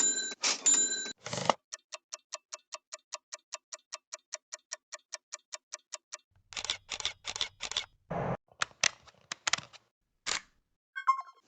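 A string of short editing sound effects: a few sharp clicks, then a fast, even ticking at about five ticks a second for some four seconds, then a scatter of sharp clicks and hits, and a few brief pitched blips near the end.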